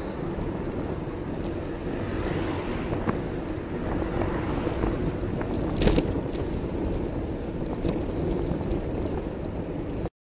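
Wind buffeting a handlebar-mounted camera's microphone on a moving road bike, over steady road rumble from the ride. A single sharp knock comes about six seconds in, and the sound cuts off abruptly at the very end.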